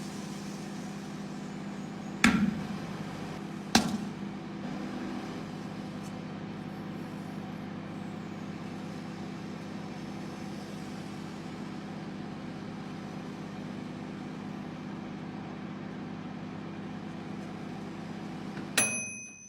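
Microwave oven running with a steady hum, broken by two sharp pops about two and four seconds in. Near the end a short electronic beep sounds and the hum stops.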